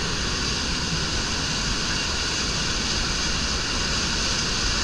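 Steady roar of the Bridal Veil Falls' water crashing onto the rocks right beside the walkway, with spray splashing over the wooden steps.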